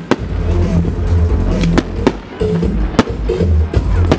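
Fireworks bursting overhead, several sharp bangs about a second apart, over music with a heavy bass.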